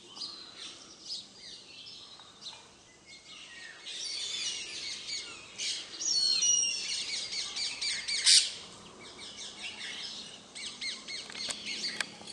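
Young Indian grey hornbills calling: a run of high, squeaky, overlapping calls. The calls grow busiest from about four to nine seconds in, with one brief loud squawk-like burst near eight seconds, then thin out again.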